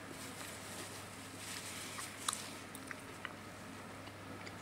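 Quiet chewing of food, with a few faint clicks of a spoon against the plate in the second half.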